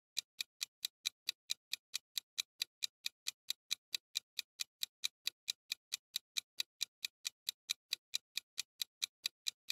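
Clock-tick sound effect for a quiz countdown timer: rapid, even ticks, about four a second.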